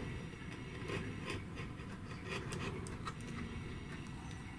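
Faint scratching and scattered light ticks of a hobby knife blade trimming covering film along the edge of a model airplane's stabilizer slot.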